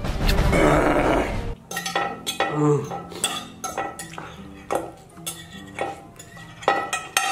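A metal fork clinking and scraping against a large plate in a quick string of sharp clicks, mixed with noodles being slurped and chewed fast.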